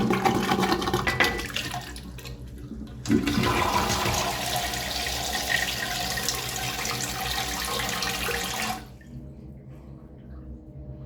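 Urinal flushing: splashing, gurgling water, then a steady rush of water that starts suddenly about three seconds in and cuts off sharply near the end.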